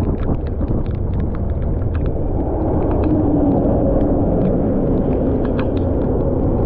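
Yamaha motorcycle riding in heavy rain, its engine and tyres on a soaked, flooded road buried under a loud, steady rumble of wind and spray on the mic, as the bike slows. Raindrops strike the camera as scattered sharp ticks.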